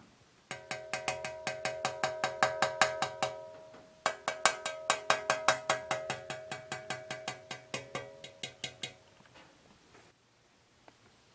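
The Havells Speedster's metal fan blades ringing as they are struck over and over in quick succession, in two runs. The second run slows and fades toward its end.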